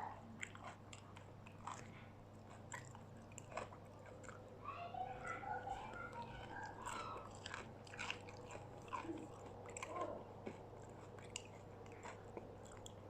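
Close-up biting and chewing of crispy battered fried food, with irregular crisp crunches.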